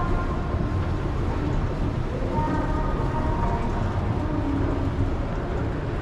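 Escalator running: a steady low rumble of its motor and moving steps, heard from a rider on it.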